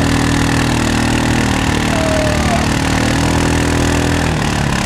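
ATV engine running at a steady speed, its pitch dropping a little near the end.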